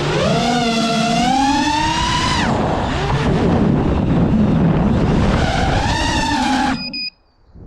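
FPV quadcopter's brushless motors whining, the pitch rising and falling with the throttle, then cutting off suddenly near the end, followed by a brief steady high tone.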